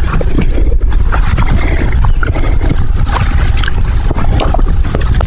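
Wind buffeting the microphone: a steady low rumble, with a steady high-pitched whine in the background.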